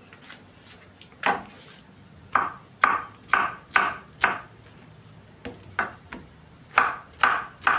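Kitchen knife slicing through peeled pineapple and knocking on a wooden cutting board: a quick run of about six cuts, a short pause, then a few more cuts.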